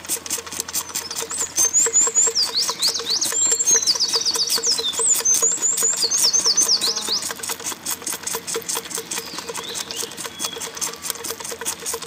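Lamb suckling milk from a feeding bottle: a fast, even run of sucking clicks. A bird sings quick high chirps in the background from about a second in until past the middle.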